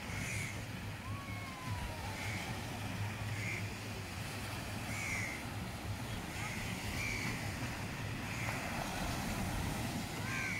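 Small waves breaking and washing up a sandy beach in a steady rush, with crows cawing over it, a short caw about every one to two seconds.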